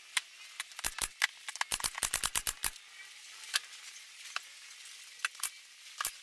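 A quick run of sharp clicks and light taps, densest about one to three seconds in, then a few scattered clicks: wood strips and tools being handled on a plywood workbench.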